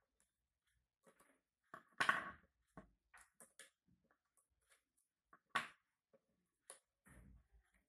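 Faint scattered clicks and rustles of hands handling the wires and transformer of a home theater amplifier, with a louder knock-and-rustle about two seconds in and another sharp knock about five and a half seconds in.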